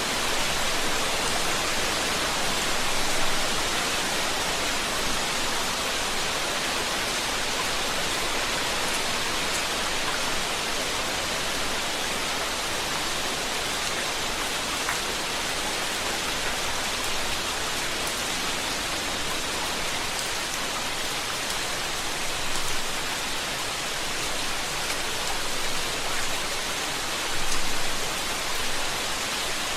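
Steady rain falling, an even dense hiss with faint scattered drop ticks and a few brief swells.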